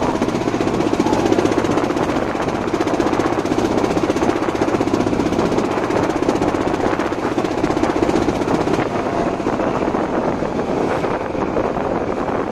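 Boat engine running steadily at speed with a fast, even pulse, over water rushing and splashing along the hull.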